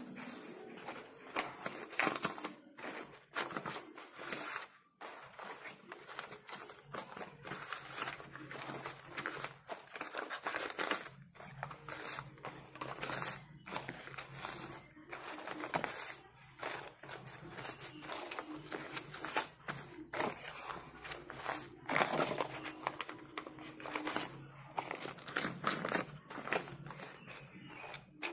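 Crumpled paper banknotes crinkling and rustling in irregular bursts as they are pulled by hand from a tin savings bank and unfolded.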